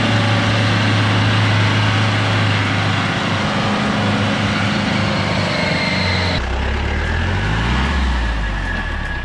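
Old Mahindra jeep's engine working hard as it pushes through deep mud, a steady drone. About six seconds in the sound drops lower, and the engine revs up several times, rising in pitch.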